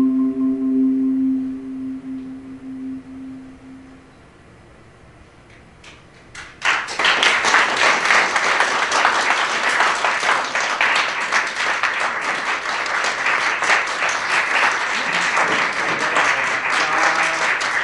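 The last chord of a marimba piece ringing and dying away over about four seconds, then a short hush, and about six and a half seconds in the audience breaks into applause that keeps going.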